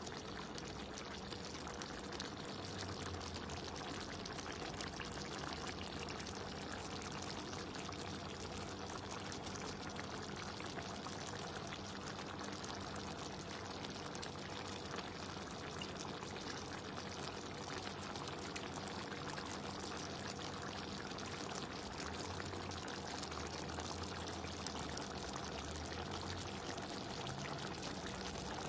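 Beef and broccoli in a brown sauce simmering and sizzling in a pan, a steady, dense crackle and bubbling.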